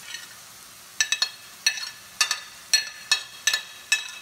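Repeated sharp, ringing clinks, about two a second, starting about a second in, as chopped thyme and basil are tapped out of a dish into a stainless steel sauté pan.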